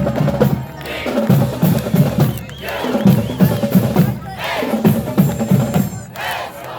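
Marching band drumline playing a cadence: bass drums and snare drums beating a quick rhythm in short phrases with brief breaks.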